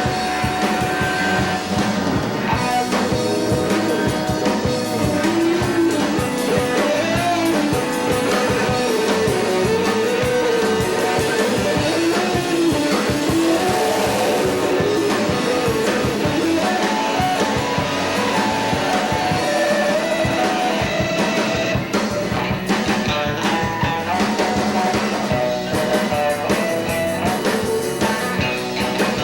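Rock band playing an instrumental passage: a guitar melody gliding up and down over drums and bass.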